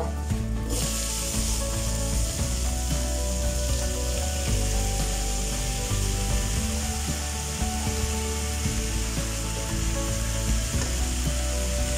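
Braised chicken pieces hitting hot oil and fried garlic in a frying pan, sizzling steadily from about a second in, with a wooden spatula scraping and pushing the meat around the pan. Background music plays underneath.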